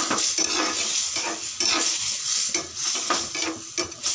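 A metal ladle stirring and scraping thick mutton gravy in a kadai, irregular scrapes and clinks over a steady sizzle. The gravy is being cooked down to thicken.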